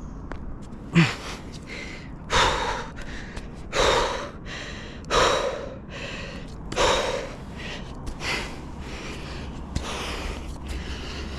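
A man breathing hard from exertion: deep, loud breaths about every second and a half, with a short low grunt on the first one. The breaths fade to quieter, irregular sounds after about eight seconds.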